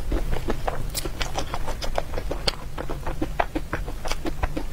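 Close-miked eating: a steady run of wet mouth clicks and smacks from chewing, about four to five a second.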